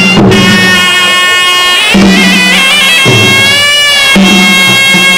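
Traditional Khmer boxing ring music: a shrill reed oboe (sralai) plays a wavering, ornamented melody over drums that beat about once a second.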